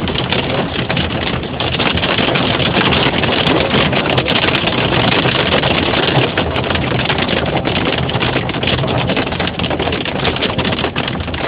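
Storm rain and hail drumming on a car's roof and windshield, heard from inside the car: a dense, steady rush full of small sharp hits that grows louder about two seconds in.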